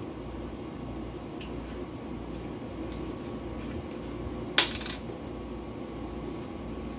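Kitchen handling sounds of a spoon against a dish while salsa is spooned out, with faint small ticks and one sharp clink about four and a half seconds in, over a steady low hum.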